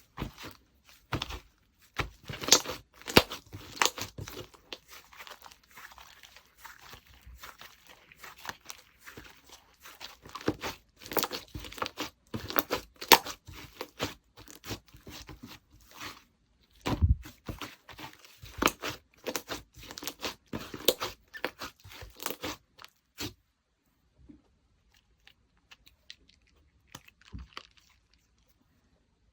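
Slime being squished and pulled by hand, giving a quick run of sticky pops, clicks and crackles. The clicks stop about 23 seconds in, and only a few faint ones follow.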